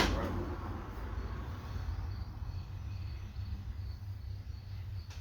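Outdoor ambience: insects chirping in a steady, evenly repeating high-pitched pattern over a low, steady rumble.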